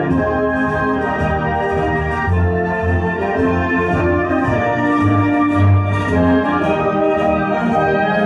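Loud instrumental music played through OHM TRS PA speakers, with held chords and a deep bass line pulsing in heavy notes.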